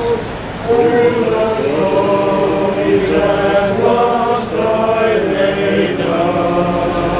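Small brass band playing a slow tune in long held chords, with a brief pause just after the start before the chords come back in.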